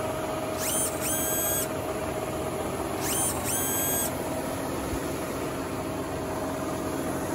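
Combine harvester running steadily while its unloading auger pours harvested rice into a bulk bag, a constant mechanical drone with a steady hum. Twice, about a second in and again around three and a half seconds, a pair of high whistle-like tones rises and then holds.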